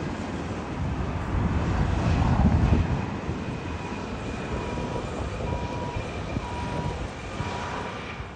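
Turbofan engines of a Delta Connection Embraer E175 regional jet running as it rolls along the runway. The roar swells to its loudest about two to three seconds in, with a steady high whine over it.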